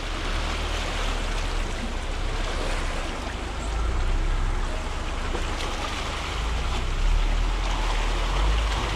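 Suzuki Jimny's 1.5-litre petrol four-cylinder engine running low as the small 4x4 wades through a muddy water-filled rut, with water sloshing and churning around its tyres. A little louder about four seconds in and again near seven seconds.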